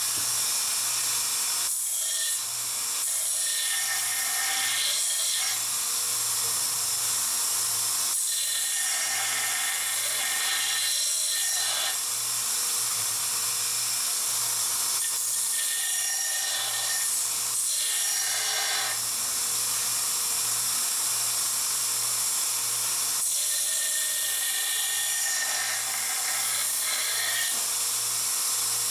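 A carbon-steel chef's knife blade being sharpened in repeated strokes that come in sets of a few seconds each, over a steady whir and hiss.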